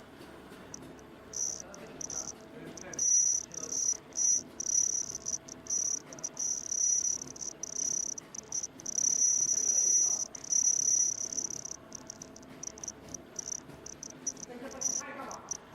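Ultrasonic welding machine for face-mask ties running, giving a high-pitched whine that starts and stops over and over as the welds are made, over a low mechanical hum.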